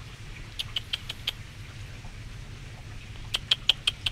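Quick runs of short, high kissing squeaks made with the lips to call a cat, about six a second: one run of about five near the start and another about two seconds later, over a steady background hiss.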